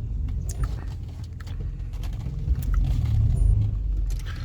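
Holden Commodore being driven, its engine and road noise a steady low rumble heard from inside the car, with a few faint clicks.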